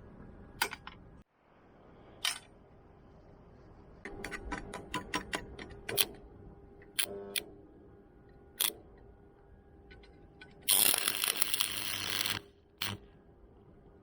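Scattered sharp clicks and taps, with a quick run of clicks in the middle, then a loud hiss lasting about a second and a half near the end.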